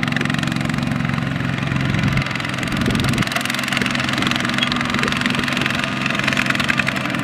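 Single-cylinder diesel engine of a two-wheel walking tractor running under load as it hauls a loaded rice trailer through deep mud. Its low note drops away about two seconds in and picks up again about a second later.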